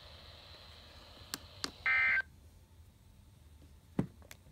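Weather radio receiver between broadcast messages: one short electronic tone burst about two seconds in, like a touch-tone (DTMF) digit, over faint hiss. A few faint clicks come before it, and a sharp pop sounds near the end.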